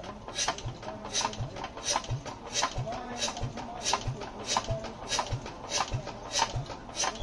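Diesel generator engine being turned over by hand crank, with an even, heavy thud about once every 0.6 s as each compression comes round.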